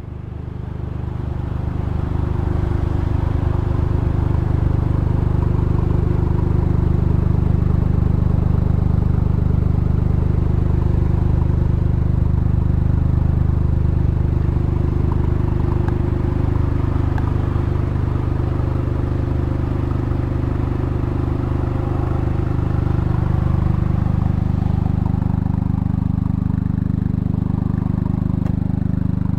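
Toyota GR Yaris's 1.6-litre turbocharged three-cylinder engine idling steadily, an even low hum.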